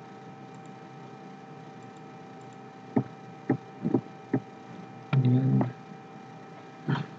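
Computer mouse and keyboard clicks over a steady electrical hum: four sharp clicks between about three and four and a half seconds in, a half-second low-pitched sound about five seconds in, and one more click near the end.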